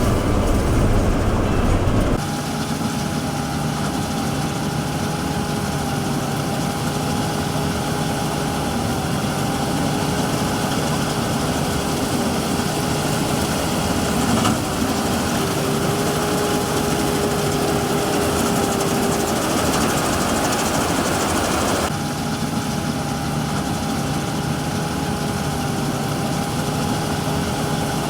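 Combine harvester running steadily, a constant engine drone with a high, steady whine over it. The sound changes abruptly about two seconds in and again a little past twenty seconds.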